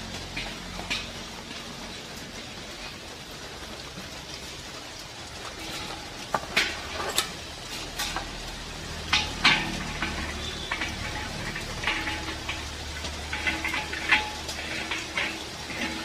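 Scattered clicks and light metallic scrapes of small pipe fittings and a valve being handled and screwed onto the outlet of a steel pressure tank. They come thicker and louder from about halfway through.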